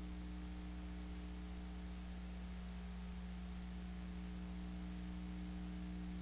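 Steady electrical mains hum with a constant layer of tape hiss from an analog videotape's audio track, carrying no programme sound while the colour-bar test signal runs.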